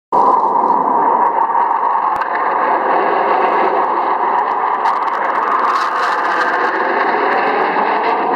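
Military jet aircraft engine noise: a loud, steady, distorted roar that starts suddenly and holds at an even level.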